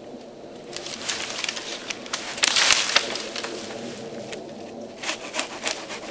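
A small tree, sawn through with a hand saw, cracking and falling: scattered snaps of breaking wood, then a loud crash of limbs through brush about two and a half seconds in, and a few more snaps near the end.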